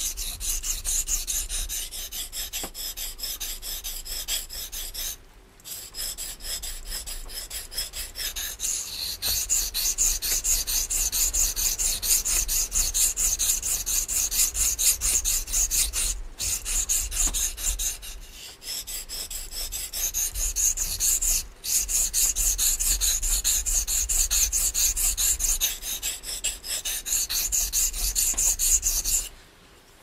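Steel knife blade of a Schrade F57 being ground on a wet Naniwa Pro 320 grit round water stone: quick back-and-forth scraping strokes, breaking off briefly a few times and stopping just before the end. This is coarse shaping of a right-hand convex bevel.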